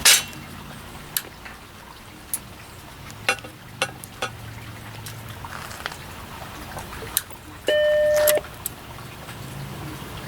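A sharp click near the start and scattered small clicks and taps, then, almost eight seconds in, the Macintosh Plus's startup beep: a single steady electronic tone lasting under a second, the sign that the computer has powered on.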